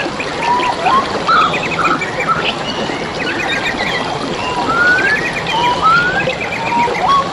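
Songbirds singing over steadily trickling, flowing water: rising whistles and rapid chirping trills from more than one bird, repeating throughout.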